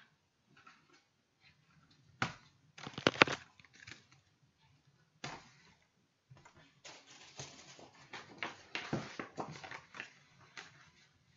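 K-pop album packaging handled by hand: a stiff paper sleeve and CD case rustling, sliding and tapping in irregular bursts. The loudest handling comes about three seconds in, with a longer stretch of rustling and taps from about seven to ten seconds in.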